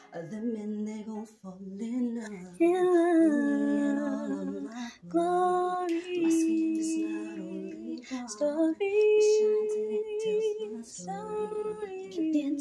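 A woman's voice singing long, held notes with vibrato, without clear words.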